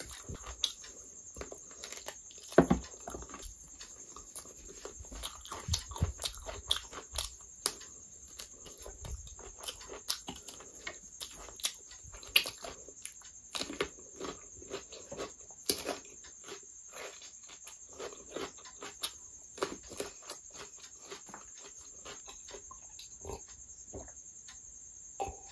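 Close-miked mouth sounds of eating chicken curry by hand: irregular wet smacks, chewing and sucking of sauce off the fingers. A sip from a glass near the end.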